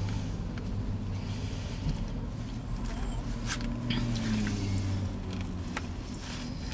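Someone eating saucy chicken nachos with a plastic fork: wet, squishy chewing with scattered small clicks and scrapes of the fork against the cardboard box.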